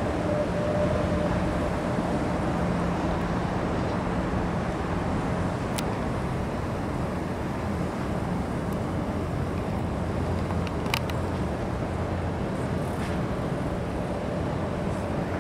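Steady low engine drone with a constant low hum. There are brief sharp clicks about six and eleven seconds in.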